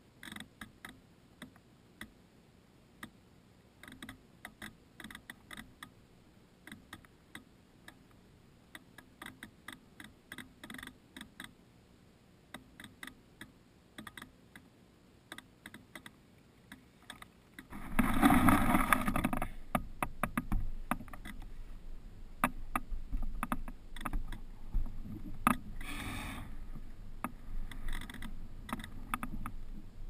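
Irregular small sharp ticks and clicks against the GoPro housing of a crashed RC model plane. About 18 seconds in, a loud rush of wind on the microphone sets in and stays, with rustling and scattered knocks.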